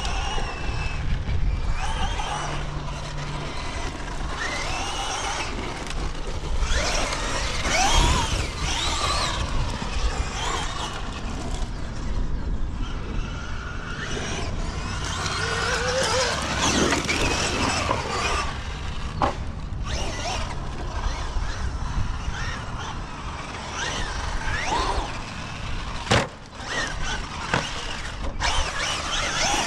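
Traxxas Maxx Slash RC short-course truck's brushless electric motor whining up and down in pitch over and over as the truck accelerates and slows. There is a sharp knock near the end.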